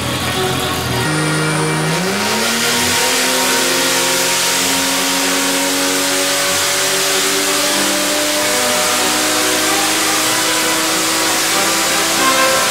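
Turbocharged Vortec 4200 inline-six making a pull on a chassis dyno under full load, its pitch climbing steadily from about a second in, with a hiss over the top.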